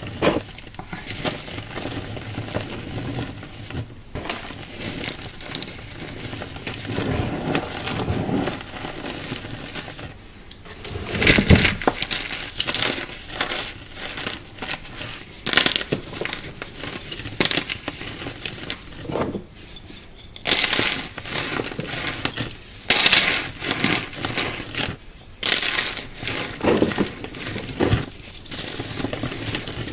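A hand crushing and crumbling soft chunks of coloured chalk, a continuous crackly, powdery sizzle with louder crunches at intervals, the loudest about a third of the way in and a cluster more in the second half.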